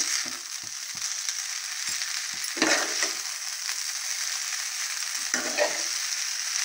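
Hakka noodles and vegetables sizzling steadily in a hot kadhai (wok) as they are tossed with metal tongs. Short clicks and scrapes of the tongs against the pan run through it, with two louder scrapes a few seconds apart.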